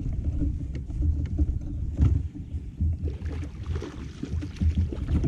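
Low rumble of wind and water around a kayak, with a knock about two seconds in, and a hooked bass splashing at the surface beside the boat during the second half.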